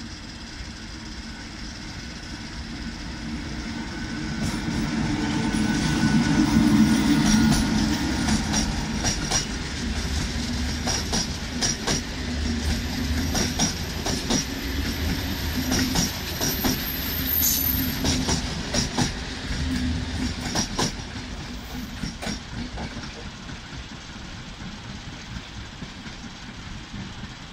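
Passenger train passing close by on the adjacent track, loudest about seven seconds in. Its wheels then click and knock over the rail joints in quick, irregular strokes, and the sound fades as the train draws away.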